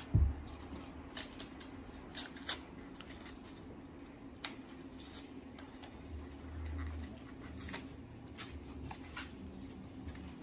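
Small toy packet of paper and plastic being picked and torn open by hand: scattered crinkles, rustles and small clicks. There is a low thump just after the start, and a faint steady hum underneath.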